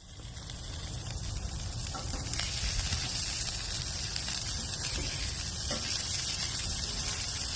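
Sausage patties sizzling on a hot Blackstone flat-top griddle: a steady frying hiss that swells over the first couple of seconds, with a few small pops.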